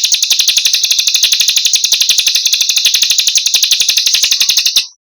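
A small songbird's rapid buzzing trill used as training song for cage birds: a fast, even run of high notes, about a dozen a second, that stops abruptly near the end.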